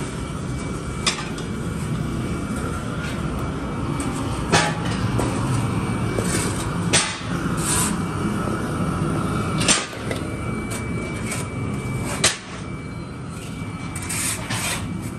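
Steady workshop machine noise with five sharp knocks spread through it, the loudest about four and a half seconds in, and a few short hissing bursts.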